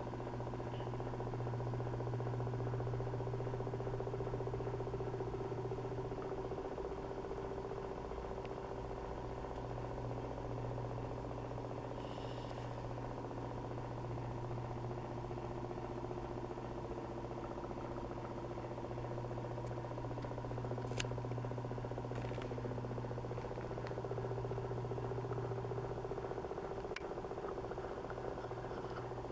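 Steady low machine hum with a few faint, brief clicks.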